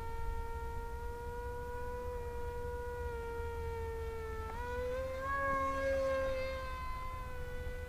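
Electric motor and propeller of an AtomRC Bat delta-wing RC plane buzzing steadily in flight. Its pitch jumps up about halfway through, then eases back a little.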